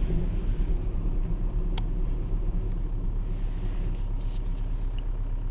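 Car driving slowly on a slick, snow-covered road: a steady low rumble of engine and tyres, with one brief click about two seconds in.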